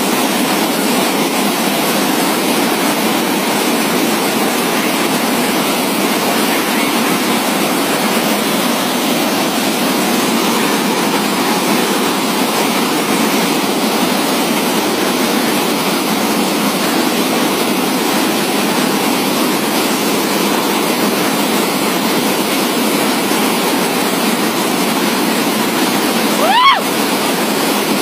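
Heavy water gushing steadily from the pump house's large outlet pipes and crashing into the canal. About a second before the end a brief pitched chirp rises over the rush.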